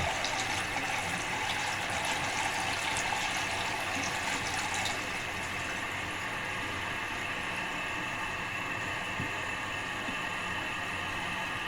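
Toilet tank refilling through its fill valve: a steady hiss of water running in, easing slightly about five seconds in.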